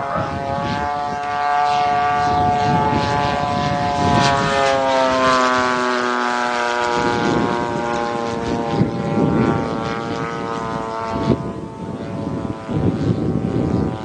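Radio-control Pitts biplane's model engine running in flight, a steady buzzing drone whose pitch falls over a few seconds midway and then holds.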